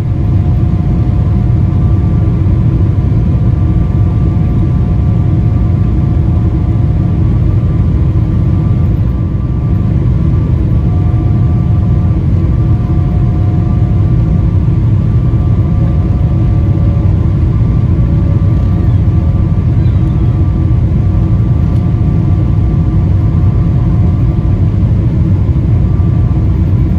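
Cabin noise of a Boeing 777-300ER heard from inside the cabin: a steady rumble from the airflow and its GE90-115B engines, with a few faint hum tones above it that shift slightly in pitch.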